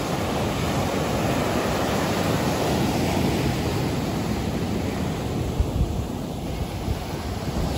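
Ocean surf breaking and washing up on the shore, a steady hiss, with wind rumbling on the microphone in a few louder gusts a little past halfway.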